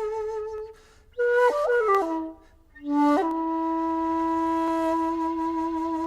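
Bamboo flute playing a slow melody: a held note with gentle vibrato, a short ornamented phrase after a brief pause, then a long, lower held note from about three seconds in.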